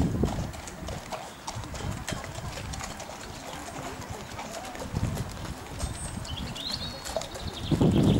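Horse walking on a sand dressage arena: faint, soft hoofbeats. A short high chirp comes about two-thirds of the way through, and wind buffets the microphone near the end.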